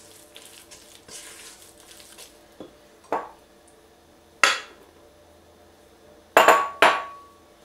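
Silicone spatula stirring stiff dough in a stainless steel pot, with sharp knocks against the pot: two lighter ones about three seconds in, a loud one midway, and a loud quick pair near the end that leaves the steel ringing briefly.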